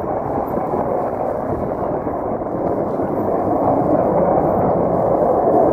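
Denel Cheetah C fighter's Atar 09K50 turbojet, heard as steady jet noise while the aircraft climbs away after takeoff, swelling a little about four seconds in.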